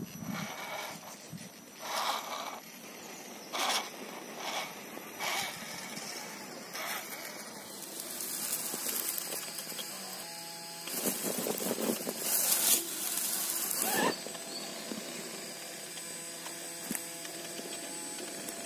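Radio-controlled rock crawler climbing rock: a faint electric motor and gear whine, with the tyres scraping and knocking against the stone in short bursts. The scraping is loudest in the middle of the clip.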